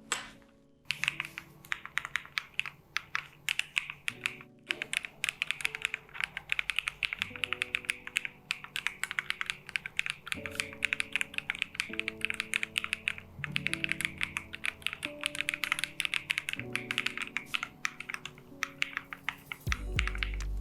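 Fast typing on an AKKO MonsGeek M1W aluminium-cased mechanical keyboard: a dense, continuous run of key clacks, with a brief pause about four and a half seconds in.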